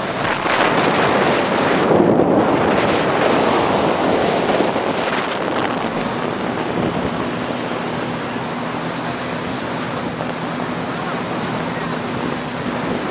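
River water rushing and splashing past a moving boat, with wind buffeting the microphone, loudest in the first five seconds. From about six seconds in, a steady low hum of the boat's motor comes through under the water noise.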